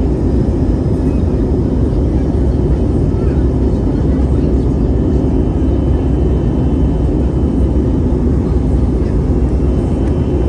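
Jet airliner cabin noise heard from a window seat on approach: a loud, steady rumble of engines and airflow, heaviest in the low end, with faint thin whine tones above it.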